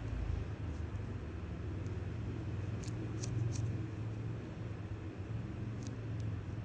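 Steady low background hum, with a few faint short clicks about three seconds in and again near the end.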